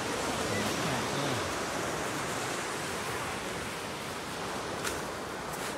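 Ocean surf washing on a gravel beach, a steady rushing noise, with a short click about five seconds in.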